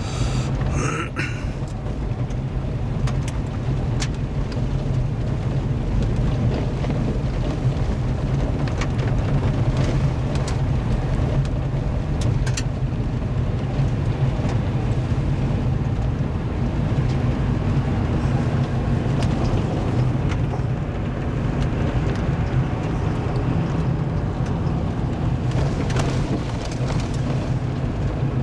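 Vehicle driving on a gravel road, heard from inside the cab: a steady low drone of engine and tyres on gravel, with occasional sharp clicks.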